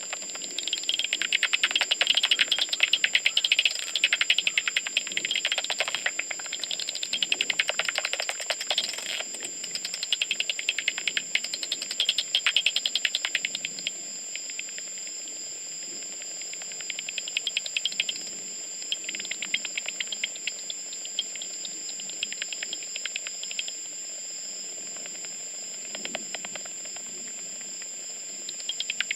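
Bat echolocation calls made audible by a homemade bat detector: rapid trains of clicks that come in bursts, swelling and fading as bats fly past, over a steady high tone. The clicks thin out in the middle stretch and pick up again near the end.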